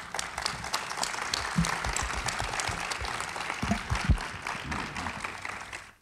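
Audience applauding steadily, with a few low thumps from a microphone being handled. The applause cuts off suddenly at the end.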